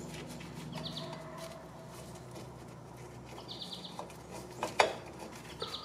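A small bird chirping in short, rapid trills about every two to three seconds, over a faint low steady hum. A single sharp click near the end comes from hand work at the brake backing plate.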